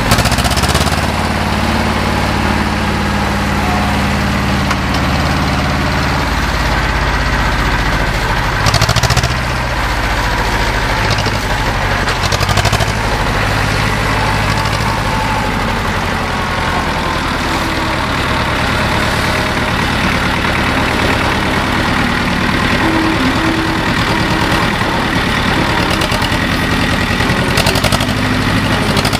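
A 1998 Hardy Chinese-built diesel tractor engine running steadily, briefly louder about nine seconds in.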